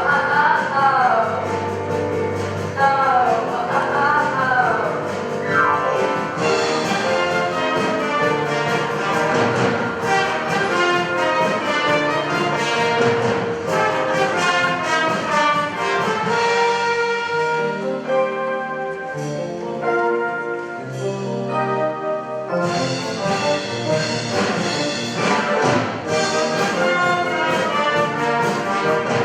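Instrumental music with brass over a steady drum beat, with a wavering high melody in the first few seconds.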